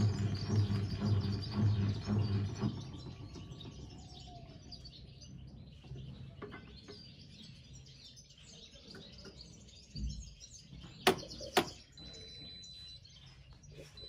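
Music with a steady low beat stops about three seconds in, leaving faint birds chirping. Two sharp clicks come close together about eleven seconds in, and a faint steady high tone follows.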